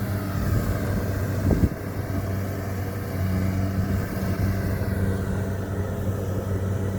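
Diesel engine of rice-harvesting machinery running steadily at a constant speed, with a brief thump about a second and a half in.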